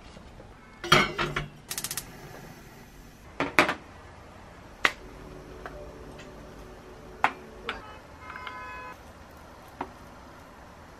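Kitchen clatter on a stainless steel counter: a spoon, a mug and small tea infusers clink and tap as they are handled and set down, with a quick run of clicks about a second in and a loud knock near three and a half seconds. Later, softer scraping taps of a spoon scooping loose fruit tea from a canister.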